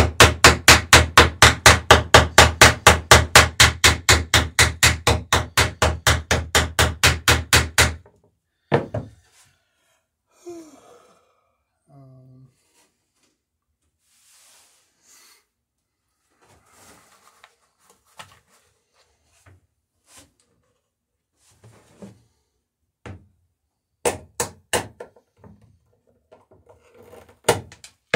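Hammer peening a rivet in the dory's wooden planking: a fast, even run of blows, about four a second, that stops about eight seconds in. Then come scattered lighter knocks and tool handling on wood, with a few sharp taps near the end.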